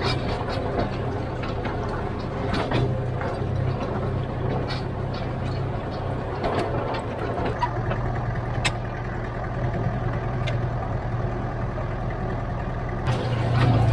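Diesel engine of a heavy earthmoving machine running steadily under work, with scattered knocks and clanks, getting a little louder near the end.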